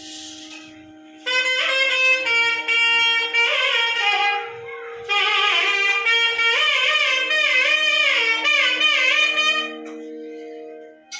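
A reed wind instrument playing a melody with strong pitch bends and slides over a steady drone. The melody comes in about a second in, pauses briefly midway, and stops shortly before the end, leaving the drone.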